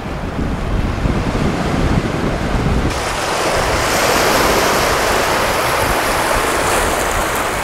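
Wind rumbling on the microphone, then, about three seconds in, a sudden change to the steady wash and splash of small waves breaking over seaweed-covered beach rocks.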